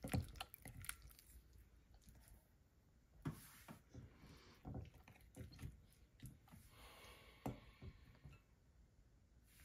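Faint, irregular sticky squelches and light taps of glue slime being stirred with a spatula in a glass bowl, the activator just added and still being worked in.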